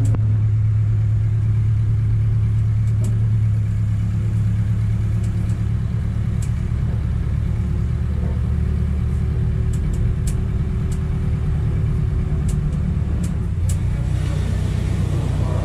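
A vehicle engine running steadily at a low, even pitch, with a few faint light clicks over it.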